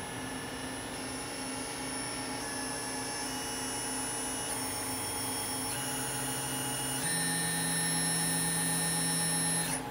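Brother TC-32BN-QT CNC drill-and-tap centre spindle running up through its speeds. It is a high electric whine that steps up in pitch several times and grows a little louder, then cuts off suddenly near the end, over a steady machine hum.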